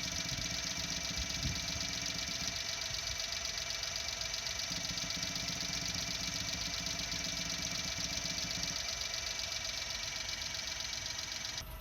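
Suzuki Jimny JA11 engine idling with a fast, steady buzzing rattle around the air cleaner that sounds like exhaust leaking from a hole in the muffler. The cause is the oil catch tank hose vibrating against a nearby fitting.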